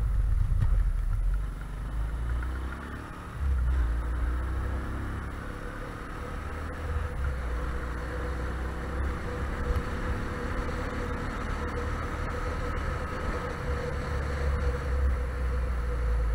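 Engine of a small open vehicle running steadily as it drives along a road, heard from on board, with wind buffeting the microphone in gusts. The engine note dips briefly about two seconds in, then picks up again.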